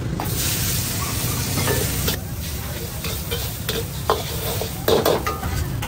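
Egg poured into hot oil in a wok sizzling loudly for about two seconds, then a softer sizzle as a steel ladle stirs and scrapes it, with a few sharp metal knocks of the ladle on the wok near the end.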